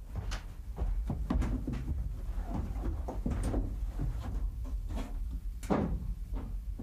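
Irregular knocks and clanks of a man climbing a metal ladder up through a hatch inside a flying boat's metal hull, over a low steady hum.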